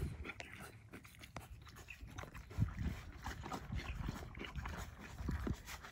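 Horse eating grain feed from a rubber feed tub: irregular crunching and chewing with scattered soft low thumps.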